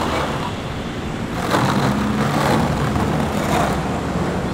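Street traffic noise, with a motor vehicle's low engine hum swelling as it passes close, loudest from about a second and a half in until near the end.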